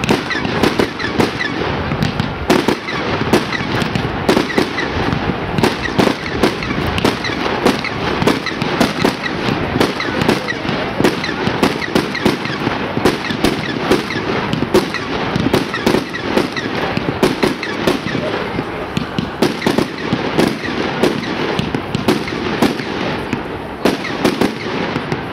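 Aerial fireworks bursting in rapid succession: a dense, continuous stream of bangs and crackles that thins out near the end.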